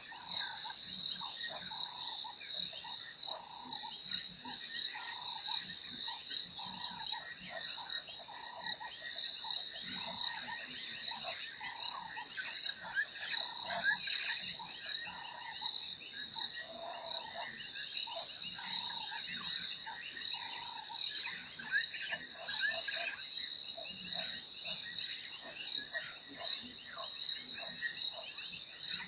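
Night chorus of frogs and insects. A loud, high-pitched pulsing call repeats about once a second without a break, with shorter, lower frog calls scattered beneath it.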